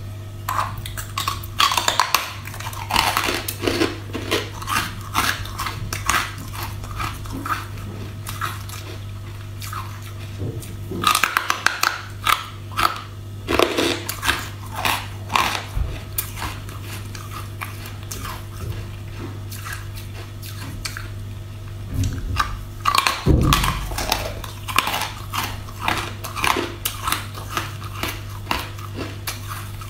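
Crunching bites and chewing of thin slabs of carbonated soda-water ice, close to the microphone. The crunches come in rapid bursts with short pauses between them, over a steady low hum.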